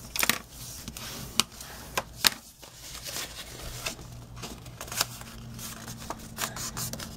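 Scored white cardstock being folded and creased by hand along its score lines: scattered crisp paper crackles with a few sharper light taps, the clearest shortly after the start and about two seconds in.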